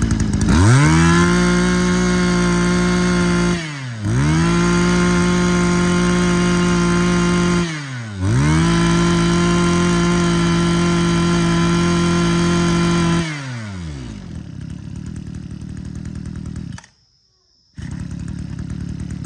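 Mitsubishi TL26 26cc two-stroke brush cutter engine revved to full throttle three times, each rev held steady for several seconds with a short drop between. It then falls back to idling, cuts out for about a second near the end, and idles again.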